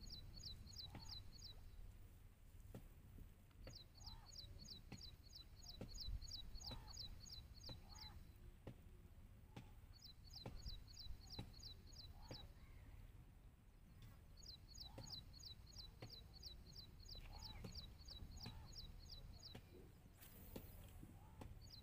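A bird repeating a rapid, high chirping trill, about eight notes a second, in bouts of two to five seconds with short gaps. Behind it are fainter scattered lower calls and a low rumble.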